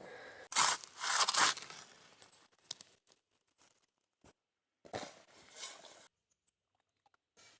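Dirt and gravel being dug and scraped, crunching in two bigger bursts with smaller scrapes between.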